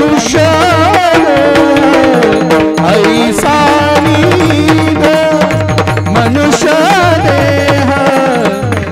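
Devotional bhajan singing: a man's voice with wavering, ornamented phrases over held drone notes and a steady rhythm of hand-drum strokes.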